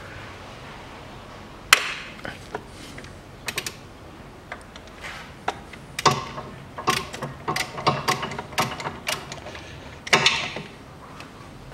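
Socket ratchet clicking in short, irregular runs as a bolt on the engine's front mount is worked, with a busy spell of clicks in the middle and a louder metallic rattle near the end.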